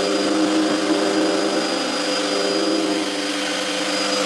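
Router running at speed with a steady whine, cutting a thread inside a wooden nut held in a threading jig.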